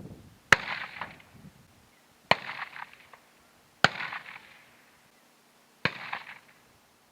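Four gunshots, spaced about one and a half to two seconds apart, each followed by a short echo that fades out.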